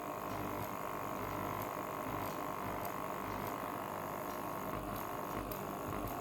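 Electromagnetic aquarium air pump with two diaphragm outlets running steadily with its lid off: an even mechanical buzz from the vibrating magnet and diaphragms. Its repaired second diaphragm now pumps at full pressure.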